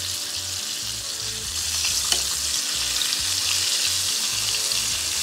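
Flour-coated hake fillets shallow-frying in hot oil: a steady sizzle with fine crackling pops, and a single tap about two seconds in.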